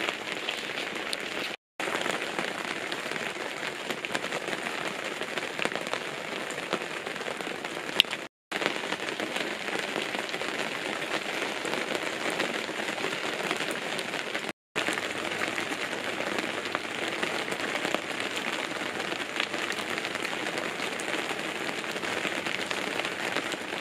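Steady rain pattering on a tent awning, a dense even patter of drops. The sound cuts out completely for a moment three times.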